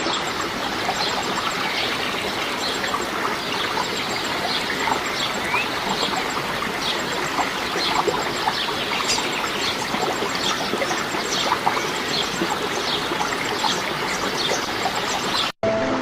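Running water, like a small stream, with many short bird chirps over it. Near the end the sound cuts out and music begins.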